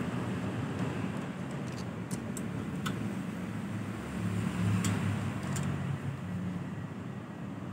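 Vespa's two-stroke engine, fitted with a Japanese carburettor and an RXZ reed valve, running at a low, steady idle that swells briefly about four to five seconds in, with a few light clicks.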